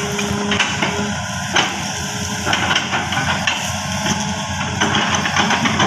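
Hitachi 210F excavator's diesel engine running under load, with a string of sharp cracking knocks as the bucket chops into a felled oil palm trunk.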